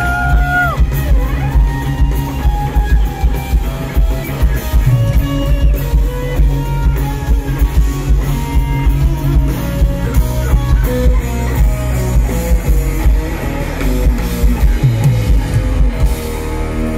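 Live rock band playing an instrumental passage: electric guitars over bass and a full drum kit, heard through a phone in the crowd. The drumming stops near the end while the guitars ring on.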